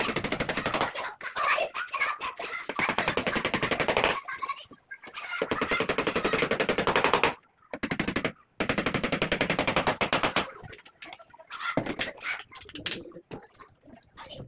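A power tool rattling with rapid, even impacts in about five bursts of one and a half to two seconds each, with short pauses between. After that come a few fainter, scattered knocks.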